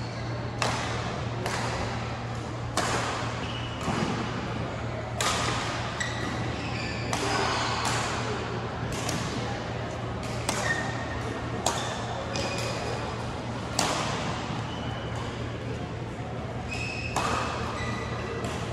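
Badminton hall sound: rackets striking shuttlecocks in sharp hits every second or two, with short squeaks of court shoes and a steady low hum underneath.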